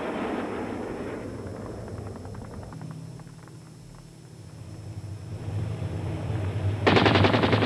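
A loud rushing noise fades away over the first second or so. Then tank engines run with a low, steady drone, and about seven seconds in a burst of rapid machine-gun fire starts.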